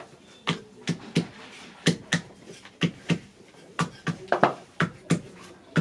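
Small hand hammer tapping a workpiece laid on a steel plate: a dozen or so sharp taps at an uneven two to three a second.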